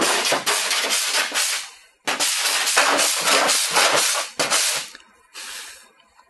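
Body file rasping across a bare aluminum body panel in quick repeated strokes, shaving off the leftover bits of a clipped stud pin. Two long runs of strokes with a brief pause about two seconds in, then one short stroke near the end.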